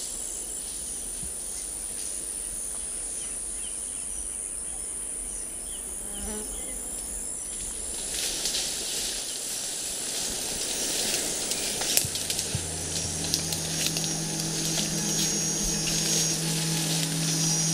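Forest insects trilling steadily at a high pitch. From about halfway there is scattered rustling and clicking, and a low steady hum joins about two-thirds through.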